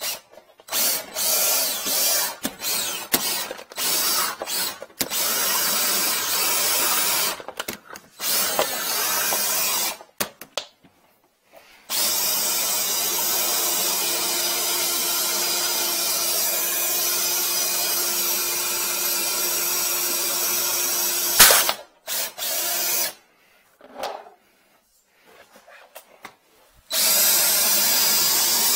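Drill driving a flex-shaft drain cleaner, its cable spinning inside a sheath to clear a clogged kitchen sink drain. It runs in short trigger bursts at first, then steadily for about nine seconds, stops with a sharp knock, gives a few more short bursts and a pause, and runs steadily again near the end.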